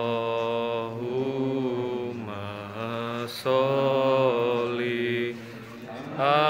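Slow ritual chanting in long held notes that shift pitch every second or so, growing softer for a moment about five seconds in.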